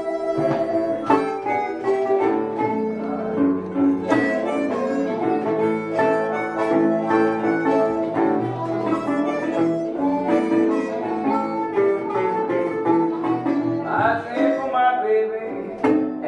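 Blues on a harmonica played into a microphone, with held notes, over a fingerpicked metal-bodied resonator guitar. The harmonica bends its notes near the end.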